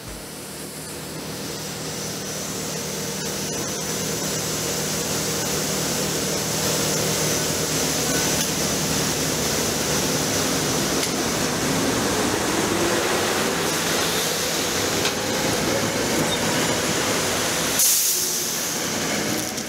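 SEPTA Silverliner IV electric railcar passing close by, a steady rush of wheel and air noise that swells over the first few seconds, with a motor whine rising in pitch as it picks up speed. A short loud burst comes near the end.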